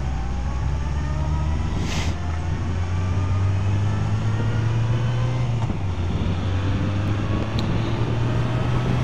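Motorcycle engine running under way, with wind and tyre noise on a helmet-mounted camera. A faint whine climbs slowly in pitch several times as the bike gathers speed. There is a short gust or bump about two seconds in.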